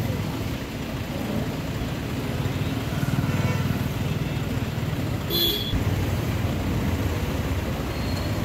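A motor vehicle engine running steadily with a low, pulsing rumble, and a brief high-pitched toot a little past five seconds in.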